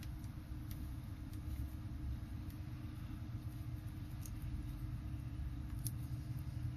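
A steady low rumble, with about half a dozen faint, sharp ticks scattered through it from pliers and fingertips working a small plastic key hinge into a laptop keyboard.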